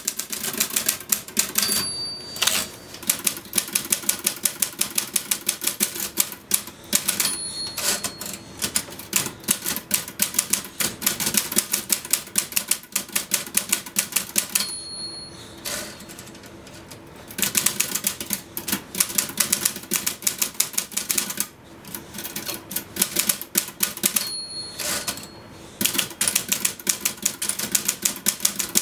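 Typewriter typed fast: a dense, rapid run of key strikes, with the bell dinging four times. The typing pauses briefly about halfway through.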